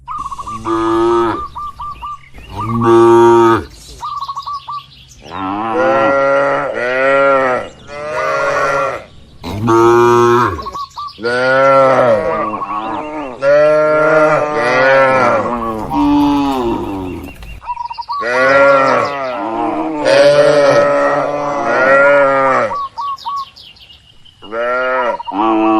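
Cattle mooing, one long call after another with brief gaps and often several overlapping, each call rising and falling in pitch.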